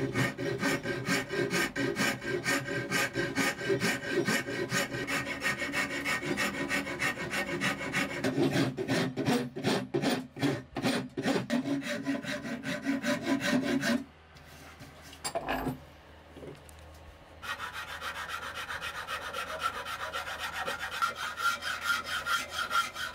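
A flat hand file worked by hand across the edge of a cherry-wood bucksaw arm, shaping a curve: quick, regular back-and-forth scraping strokes. The filing stops for about three seconds, with one short knock in the pause, then resumes with a higher, lighter scratch.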